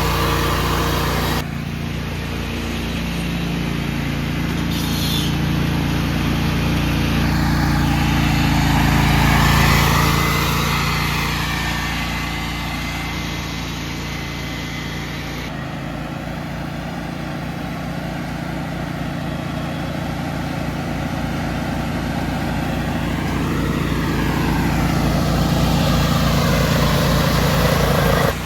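Small riding lawn mower engine running steadily under way, the sound swelling and fading as it moves, with two abrupt changes in the sound, about a second and a half in and about halfway through.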